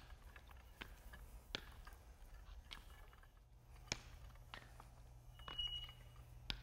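Paint roller on an extension pole back-rolling wet MMA resin over concrete: faint sticky clicking and crackling over a low steady hum, with a brief high squeak near the end.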